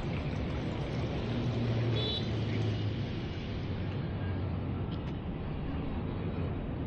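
An engine running steadily over outdoor background noise, its low hum loudest about two seconds in.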